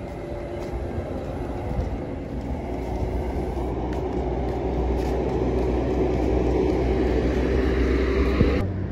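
Heavy semi-truck with a flatbed trailer driving through a roundabout, its diesel engine running with a low rumble that grows steadily louder as it approaches, then cut off abruptly near the end.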